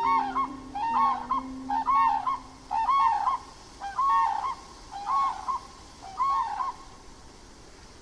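Grey crowned crane calling: a regular series of short calls, about one a second, that stop about a second before the end. Soft background music with held notes underlies the first couple of seconds.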